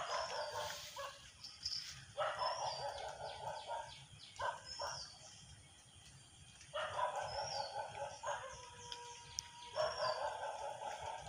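Animal calls in bursts of a second or two, about five times, with a bird repeating a short high chirp over them.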